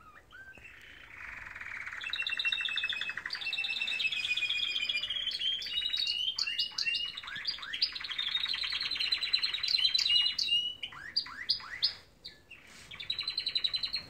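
Canary singing a long song of fast trills, switching from one rapid repeated note to the next every second or so, breaking off briefly near the end before one last trill.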